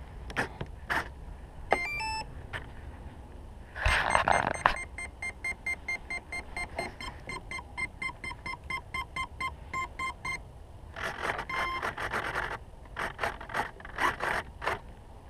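Electronic speed controller (ESC) of a brushless motor beeping through the motor as the battery is connected: a short rising run of startup tones about two seconds in, then a steady series of short beeps, about three a second, for some six seconds. The ESC is not initialising correctly. Handling knocks and rustles come before and after the beeps.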